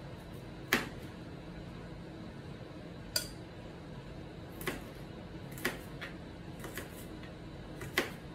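Kitchen knife knocking against a plastic cutting board while chopping an onion: about six sharp, separate chops at an unhurried, uneven pace, over a low steady hum.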